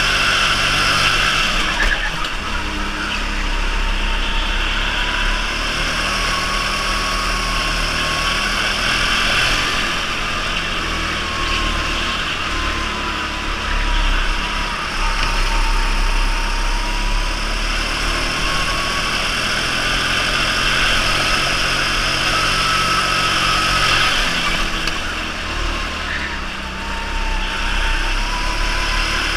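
Electric go-kart's motor whining as it laps, its pitch dipping through the corners and climbing again on the straights, over a steady hiss of tyre and air noise.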